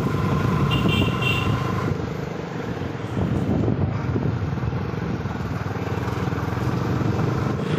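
Motorcycle riding along a road: the engine running steadily under wind and road noise. A brief steady beep-like tone sounds for about a second near the start.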